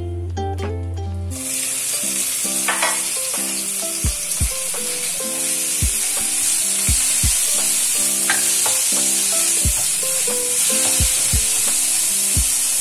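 Minced pork sizzling in hot oil in a nonstick wok: the sizzle starts suddenly about a second in as the meat goes into the pan, then runs on loud and even while a wooden spatula stirs it, with occasional soft knocks. Ukulele background music plays underneath.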